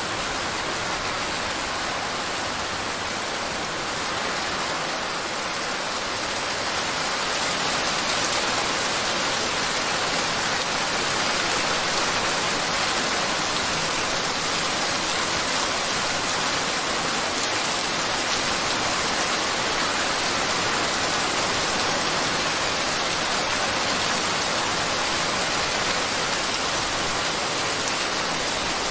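A steady rushing noise like heavy rain, even throughout with no melody or beat. It is the masking sound of a subliminal recording, laid over affirmations meant to stay below hearing.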